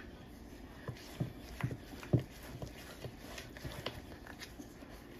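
Wooden spoon stirring thick cornbread batter in a mixing bowl, with irregular light knocks of the spoon against the bowl.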